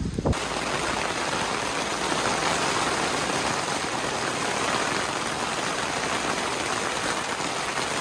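Steady rain falling, an even hiss of many drops without a break.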